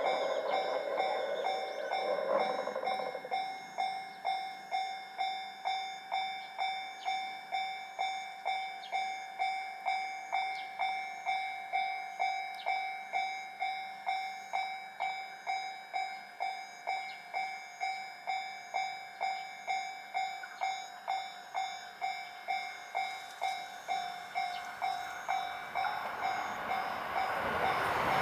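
Japanese railway level-crossing warning bell ringing in an even, repeating clang of about two strikes a second. A broad noise fades out in the first few seconds, and near the end an approaching train grows quickly louder.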